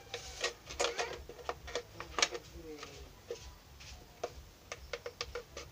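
Scissors cutting into a thin plastic bottle: a run of irregular, sharp snips and crackles of the plastic.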